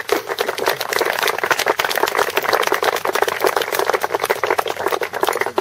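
A small crowd applauding: many hands clapping quickly together, stopping near the end.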